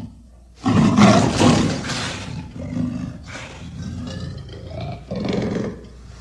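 Amur leopard calling: a loud, harsh call starting about half a second in and lasting nearly two seconds, followed by two weaker, shorter calls.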